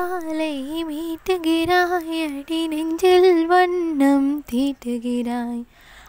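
A high solo voice singing a slow melody in short phrases, with little accompaniment.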